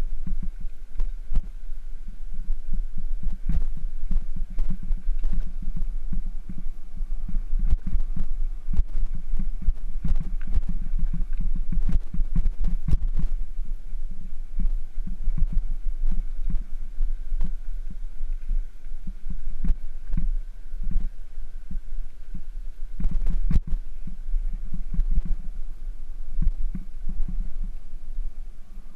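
Bicycle riding over a rough gravel trail, heard through a bike-mounted camera's microphone: a steady low rumble and wind buffeting, with frequent knocks and rattles from bumps in the path.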